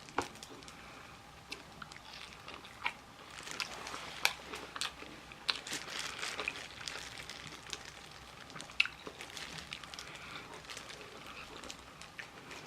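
Close-up chewing and biting into crispy Korean fried chicken, with many short, irregular crunches of the fried batter.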